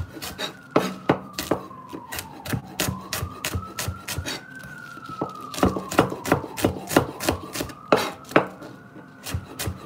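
Chef's knife slicing through Brussels sprouts and tapping the cutting board in quick, uneven strokes, about three a second. Behind it a siren wails slowly up and down.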